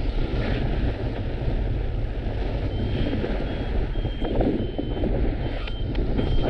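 Wind buffeting the microphone, with a paragliding variometer beeping steadily, about two short beeps a second, from about halfway through: the sign of the glider climbing in rising air.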